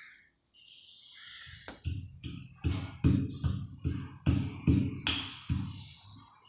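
Pestle pounding pieces of boiled beef in a mortar, about a dozen dull knocks at two to three a second, starting about a second and a half in and stopping shortly before the end. The beef is being beaten flat and tender for empal gepuk.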